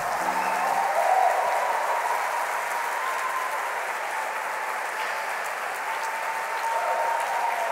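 Audience applauding steadily, with a few cheering voices in the clapping.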